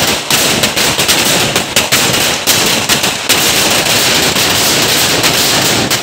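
Firecrackers going off in rapid succession, a loud unbroken crackle of bangs too fast to count, with louder cracks standing out now and then.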